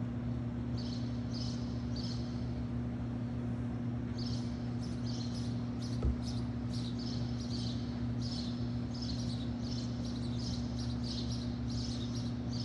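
Small birds chirping over and over above a steady low hum, with one short, soft thump about six seconds in.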